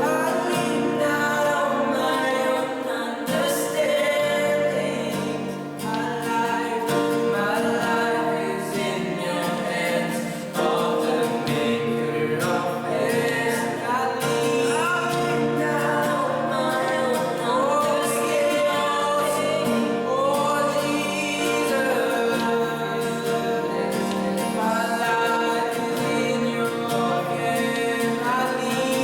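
Congregational worship song: a group of voices singing a gospel hymn over steady instrumental accompaniment.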